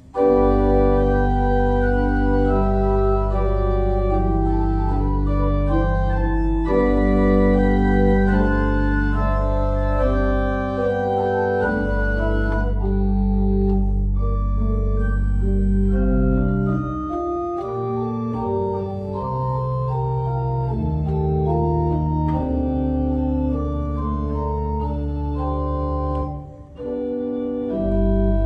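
Church organ playing slow sustained chords over long held pedal bass notes. The bass drops out for a couple of seconds partway through, and the music breaks off briefly near the end before starting again.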